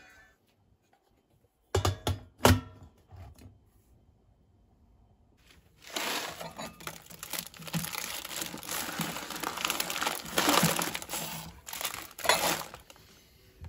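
A few sharp knocks on a hard surface about two seconds in. From about six seconds in, plastic snack packets crinkle and rustle as hands move and pick them up.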